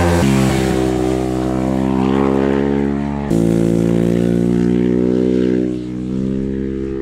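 Ducati Hypermotard's 821cc Testastretta L-twin engine running hard at fairly steady revs, the pitch swelling and easing a little. The sound jumps abruptly about three seconds in.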